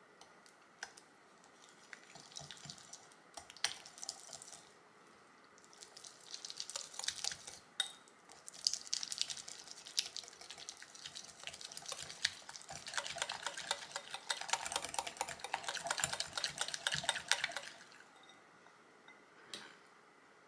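Wire whisk beating unsalted butter in a glass bowl: rapid clicking and scraping of the wires against the glass, in bursts with short pauses, fastest in a long run near the end. The butter is being creamed smooth.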